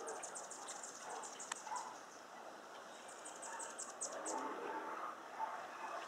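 Hummingbird giving two rapid trains of thin, very high chips, the first at the start and the second about three seconds in, over a steady background hiss.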